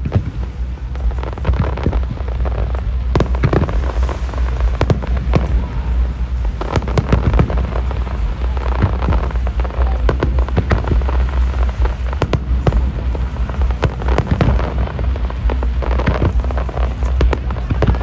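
Fireworks display: aerial shells bursting in a rapid, irregular run of sharp cracks and bangs over a steady low rumble.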